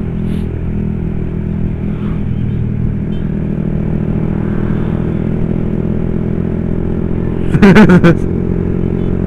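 Honda CB150's single-cylinder engine running steadily at cruising speed, with road and wind noise. A brief loud sound with a wavering pitch cuts in about eight seconds in.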